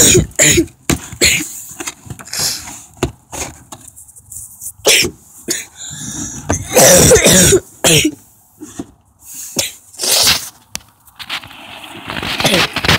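A person's voice in loud, irregular breathy bursts, about a dozen over the stretch, with short quieter gaps between.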